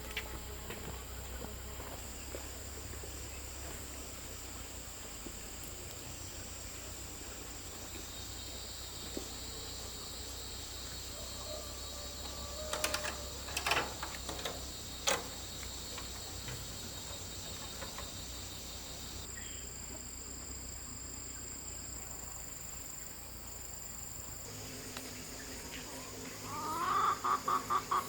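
Insects trill steadily on a high note, with a few faint clicks partway through. Near the end a barnyard fowl gives a loud, rapidly repeated call.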